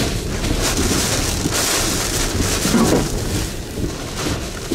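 Hurricane wind and driving rain lashing a vehicle, heard from inside the cabin, the noise rising and falling in gusts with a strong surge about one and a half seconds in.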